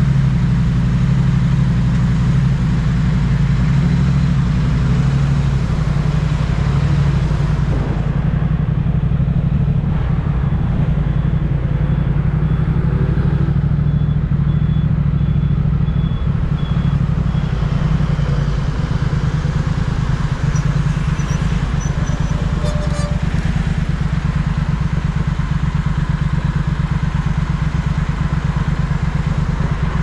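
Motorcycle engine running with a steady low note, heard from the rider's seat with wind and road noise, as the bike pulls away and cruises.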